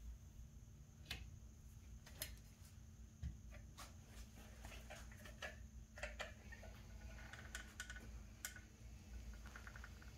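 Faint, irregular clicks and ticks from a manual caulking gun being squeezed while a bead of caulk is laid along a window joint, with a quick run of ticks about seven seconds in.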